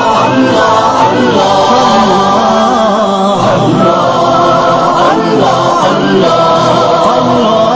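Vocal nasheed: an Urdu nazm on prostration in prayer, sung in long, sustained, melismatic lines by layered voices with no instrumental backing.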